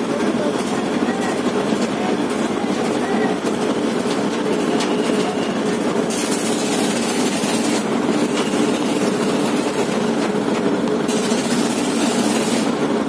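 A boat's engine running steadily with an even low drone, heard on board while under way. Two stretches of louder hiss come over it, about six and about eleven seconds in.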